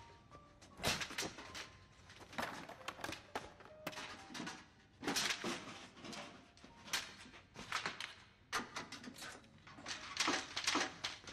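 A string of knocks, thuds and clattering as cleaning gear such as mops and boxes is rummaged through and tossed around in a storage closet, about a dozen separate bangs.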